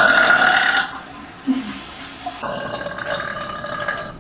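A woman burping. A loud, long burp ends about a second in, then a second, quieter drawn-out burp starts about two and a half seconds in and lasts about a second and a half.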